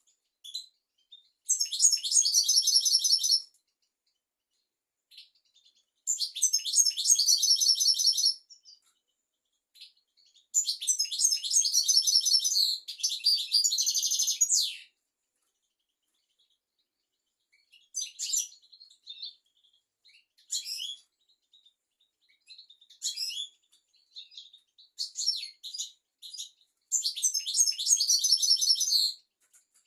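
European goldfinch singing: long bursts of rapid, high-pitched twittering and trills lasting a few seconds each, separated by pauses, with shorter single notes and brief snatches in the middle stretch.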